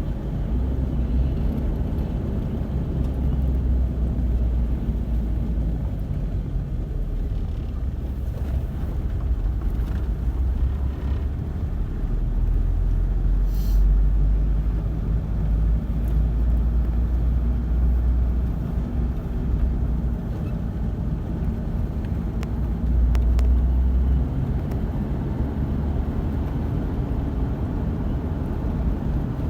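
Steady low rumble of a car driving along a road: engine and road noise.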